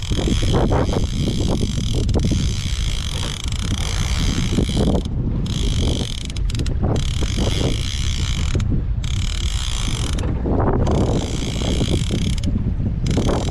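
Baitcasting reel working under the load of a big fish on the line, its mechanism clicking in stretches that break off and start again several times. Steady wind and sea noise sit underneath.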